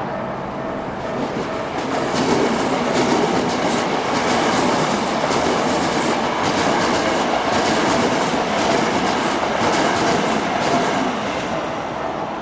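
Keikyu electric train passing over a level crossing, its wheels clacking over rail joints: it swells to full loudness about two seconds in and eases off near the end. The crossing's warning bell keeps ringing underneath as a steady high tone.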